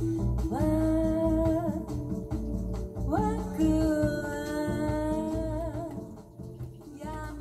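A song played back from CD on a Yamaha CDX-593 CD player: a singer holds long notes over the backing music, with a new phrase starting about half a second in and another about three seconds in, and the music gets quieter near the end.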